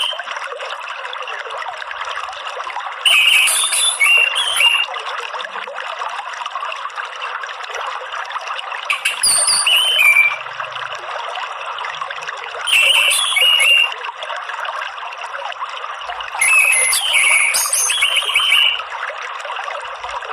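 Orange-headed thrush singing short chattering phrases, four bursts a few seconds apart, over a steady sound of running water.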